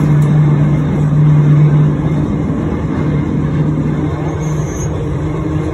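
Trolley car running along the rails, heard from inside the car: a steady low hum over continuous rolling rumble, a little louder for the first couple of seconds.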